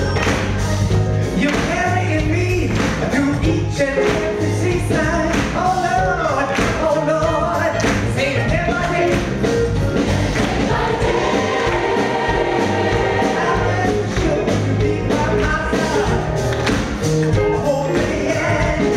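A large gospel choir and a lead singer performing live with a band of piano, keyboard, drums and bass, the drums keeping a steady beat under the sung lines.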